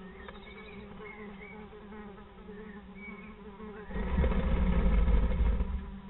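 A steady buzzing hum with a few faint, short high chirps. About four seconds in, a loud rustling rumble lasts nearly two seconds, then drops back to the hum.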